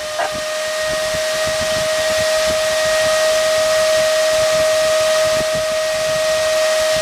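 A 280 CFM server fan running: a steady high whine over a constant rush of air.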